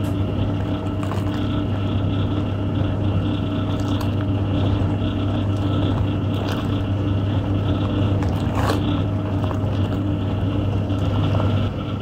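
Hoover 0307 washing machine running: its electric motor hums steadily while the side-mounted pulsator churns the soapy wash water, with a few brief splashes.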